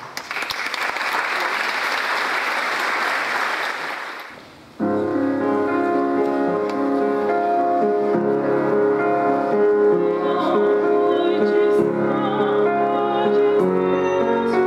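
Audience applauding for about four seconds, fading out. About five seconds in the music starts suddenly: a piano playing with a choir singing.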